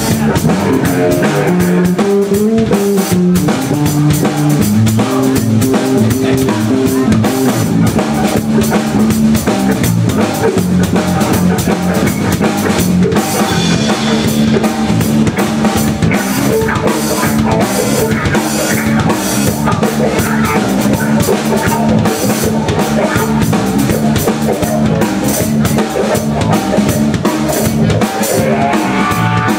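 Live rock band playing an instrumental passage: a drum kit keeping a steady beat under electric guitars and bass, with no singing.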